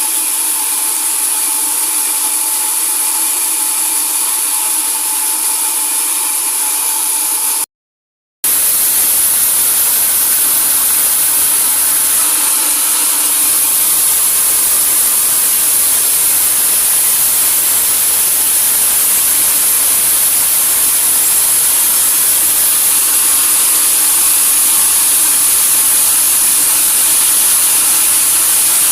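Sawmill saw machinery running steadily with a loud, even, hiss-like noise and a high whine. A silent break of under a second comes about eight seconds in, after which the same kind of noise resumes, fuller in the low end.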